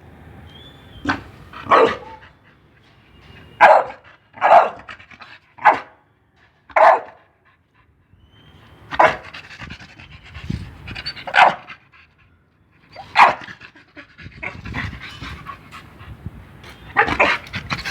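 A pit bull barking on the "talk" (speak) command: about ten short, sharp barks at uneven intervals, with panting between them.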